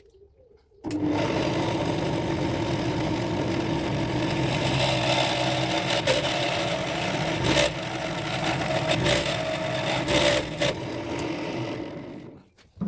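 Electric drill running with a 12 mm bit, boring a hole in teak. It starts about a second in, runs steadily and stops near the end.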